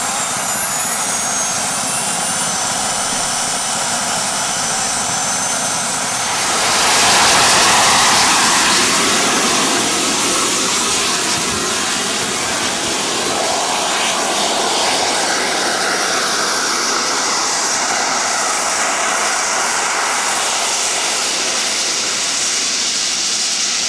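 Jet engines on a homemade go-kart running with a high whine that falls in pitch. About six or seven seconds in they surge louder as the kart sets off, then keep up a steady, dense jet noise.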